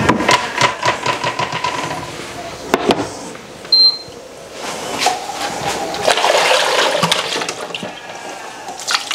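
Water running and splashing as cream separator parts are washed and rinsed, with short clinks and clatters of the parts being handled.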